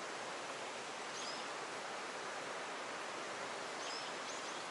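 Steady rush of flowing water, with two faint high bird chirps, about a second in and near the end.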